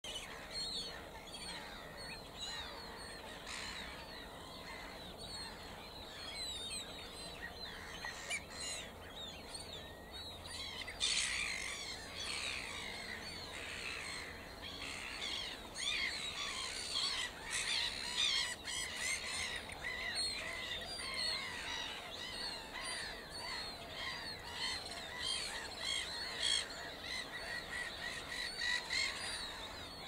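Mallard ducklings peeping: many short, high chirps in quick succession, sparse at first and much busier from about eleven seconds in.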